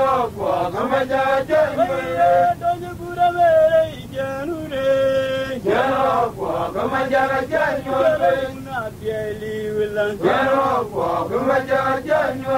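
A man singing a chant-like song, holding long notes and sliding between pitches.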